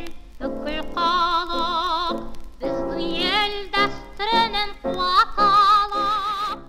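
Theme music with a lead melody that holds long, wavering notes with strong vibrato.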